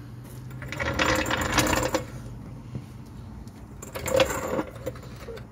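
Red steel floor jack rolled across a concrete floor, its wheels rattling, in a longer run about a second in and a short one around four seconds in.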